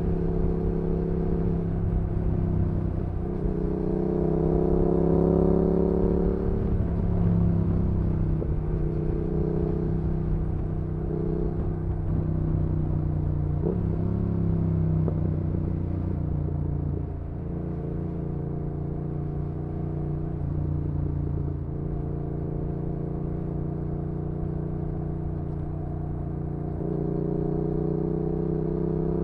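2019 Yamaha XSR700's 689 cc parallel-twin engine running through an aftermarket IXRACE MKII exhaust while cruising, its pitch rising and falling with the throttle, with a quick dip and pick-up about halfway through and revs climbing near the end.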